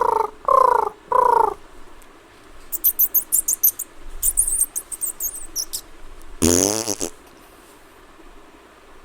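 A person making vocal sound effects with the mouth, beatbox style. First come three short pitched calls, each falling in pitch. Then a quick run of sharp hissing clicks and more hissy bursts, and then one loud tone sliding steeply down.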